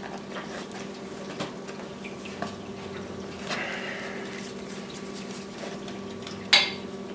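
Hands working a vinyl graphic onto a plastic motocross shroud: faint rubbing and small clicks over a steady low hum, with one sharp tap near the end as the loudest sound.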